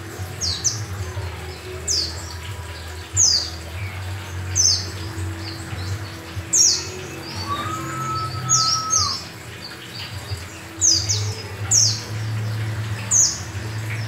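Caged yellow-breasted white-eye (pleci) singing: sharp, high chirps that fall in pitch, repeated every second or so. A steady low hum runs underneath, and a short steady tone sounds a little past halfway.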